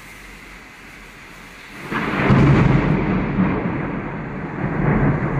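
Steady rain hiss, then about two seconds in a loud thunderclap breaks in and rolls on as a long, deep rumble.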